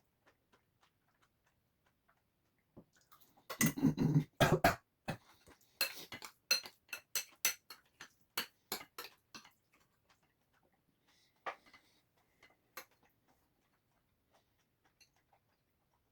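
Spoon clicking and scraping against a dish while eating curry: a dense flurry of knocks about four seconds in, then a run of separate light clicks that thin out, all sped up to double speed.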